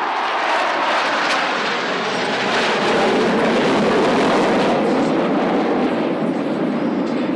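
Formation of KAI T-50B jet trainers, each with a single turbofan, flying by in an aerobatic display: a steady jet roar whose pitch drops gradually as the formation passes.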